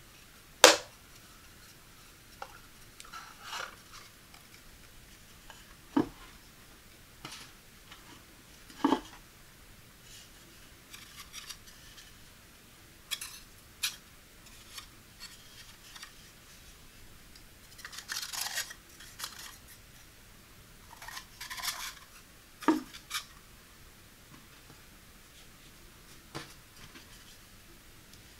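Wooden dowels and a pine base of a pasta drying rack being handled and fitted together: a few sharp wooden knocks and clacks, the loudest about a second in, with short stretches of wood rubbing and scraping on wood as the arms are swung round in the post.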